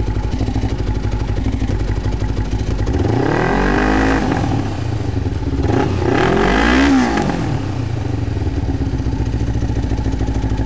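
Kawasaki EX500 (Ninja 500R) parallel-twin engine through an aftermarket Yoshimura exhaust, idling with an even pulse. It is revved twice, about three and six seconds in; each time the pitch rises and falls back to idle.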